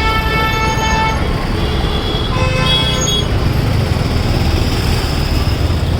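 Road traffic running steadily, with vehicle horns sounding twice: one steady horn tone in the first second and a second, higher horn about two to three seconds in.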